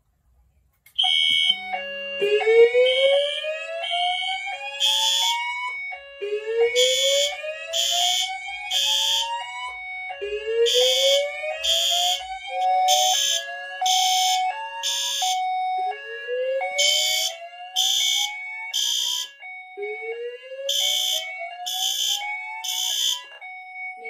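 Fire alarm drill: a Notifier DVC voice evacuation panel sounds its slow whoop tone, rising whoops about four seconds long that repeat, under a lower two-note alternating tone. From about five seconds in, System Sensor ceiling horn strobes add a code-3 temporal pattern of three short blasts repeating.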